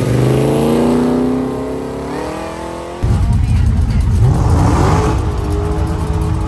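Mopar muscle car engine revving, its pitch rising and then easing off and fading. About three seconds in, an abrupt change to another loud, low engine rumble with a brief rev.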